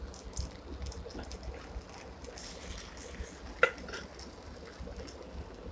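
A spoon stirring half-cooked vegetable biryani rice in a pot: soft, wet mixing with faint scrapes and one sharp click about two-thirds of the way through.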